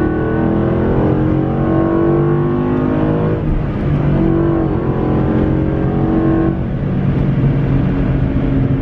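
Ford Mustang GT's 5.0 Coyote V8, fitted with a Steeda cold air intake, heard from inside the cabin while accelerating on the road. The engine note climbs in pitch, dips about three and a half seconds in, climbs again, then drops back about six and a half seconds in.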